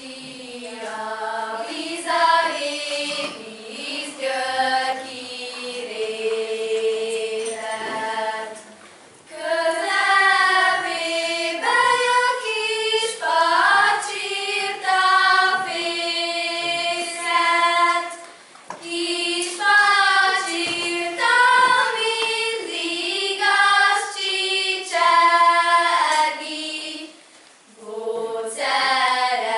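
A group of girls singing a Hungarian folk song unaccompanied, phrase by phrase with short breaths between. Quieter for about the first eight seconds, fuller and louder from about nine seconds in.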